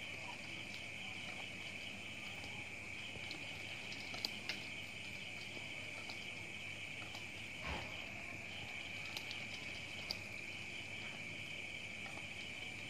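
Night insects chirring in a faint, steady high chorus, with a few scattered faint clicks and a soft thump about eight seconds in.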